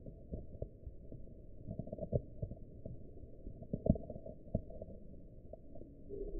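Lop-eared rabbit chewing a cabbage leaf, played back in slow motion: irregular, deep, dull crunches and thuds, the loudest a little under four seconds in.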